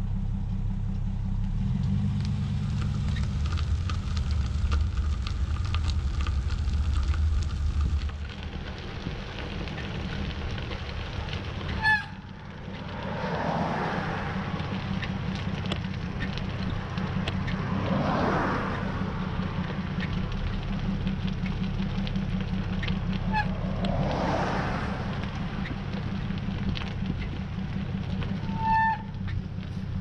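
Idling engines of a Chevrolet pickup truck and a queue of stopped cars: a steady low rumble, heaviest in the first few seconds. A few brief high squeaks come about halfway and near the end.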